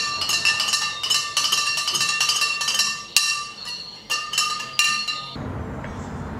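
A spoon stirring borax into hot water in a glass jar, clinking rapidly and irregularly against the glass with a ringing chime. It is dissolving the borax to make a saturated solution. About five seconds in, the clinking stops abruptly, leaving a quiet, steady low background noise.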